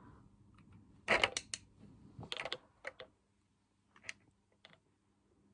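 Faint light clicks and taps of a makeup brush and a compact eyeshadow palette being handled, in a few short clusters.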